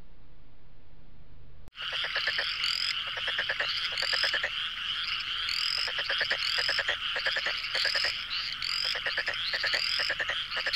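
Faint steady hiss, which stops suddenly about two seconds in. Then a loud, dense chorus of animal calls takes over: repeated pulsing croaks with high rising chirps about twice a second.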